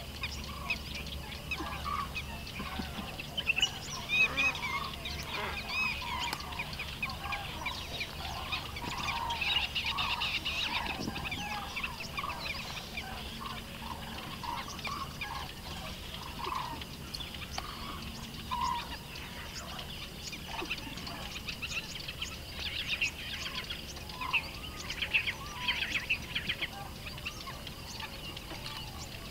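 Birds chirping and calling, many short high calls overlapping all the way through, with shorter, lower calls scattered among them.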